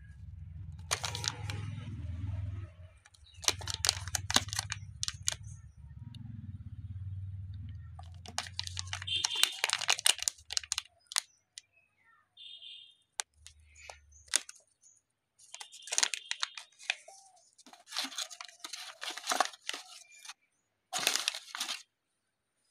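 Clear plastic bag holding a small circuit board crinkling and crackling as it is handled, in bursts every few seconds. A low hum runs underneath for the first nine seconds or so.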